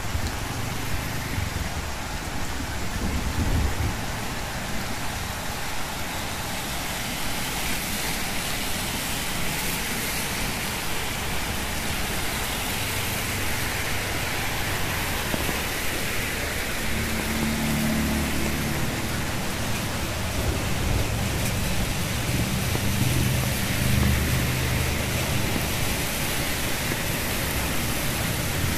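Steady rain falling on a wet street, with cars and motorbikes driving past, their tyres hissing through the water and engines rumbling. One vehicle passes about three seconds in and more pass in the second half, the loudest near the end.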